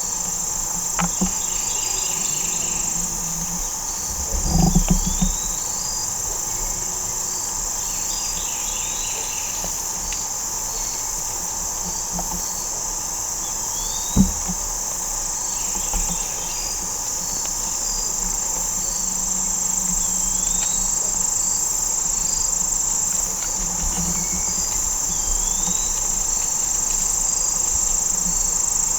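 A steady, high insect chorus buzzing without a break. A bird gives a short rising chirp every couple of seconds, and there are two low thumps, about five and fourteen seconds in.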